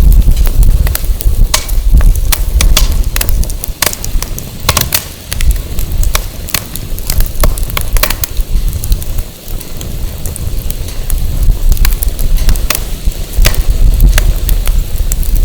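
Firewood burning, crackling with frequent sharp pops, over a loud low gusty rumble of wind on the microphone.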